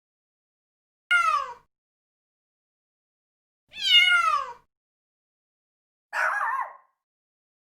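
A cat meowing twice, each meow sliding down in pitch, the second longer. About six seconds in comes a short, rougher animal call of a different kind.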